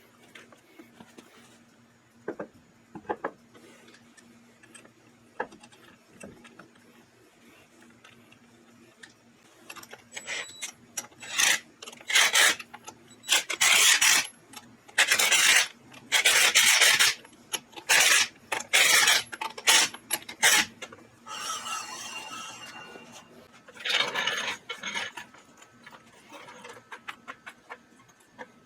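Rough rasping scrapes: a loud run of about a dozen strokes of half a second or so, after a stretch of faint scattered clicks and knocks.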